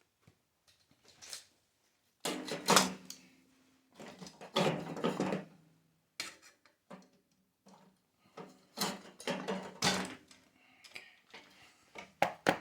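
Intermittent metallic clattering and scraping of water-heater burner and thermocouple parts being handled and pulled loose, with louder bursts about two and five seconds in and a run of knocks near the end.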